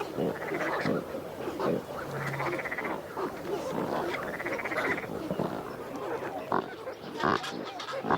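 Pelican breeding colony: many birds grunting and calling over one another, with three longer buzzy, rasping calls in the first half.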